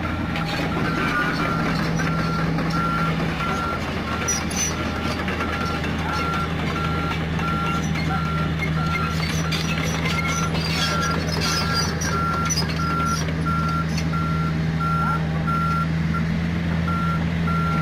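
Travel alarm beeping steadily, about two beeps a second, over the steady running of the diesel engine of a Komatsu PC45 mini excavator.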